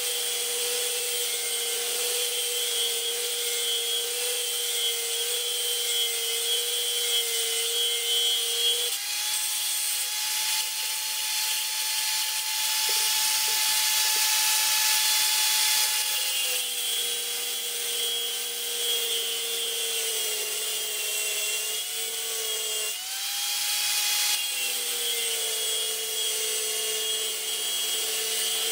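Angle grinder with a thin abrasive cut-off disc cutting a threaded steel rod, its motor whining steadily over a hissing grind. About nine seconds in, the whine steps up in pitch for several seconds as the disc runs free off the rod, then drops back as cutting resumes; it steps up again briefly a little after twenty-three seconds.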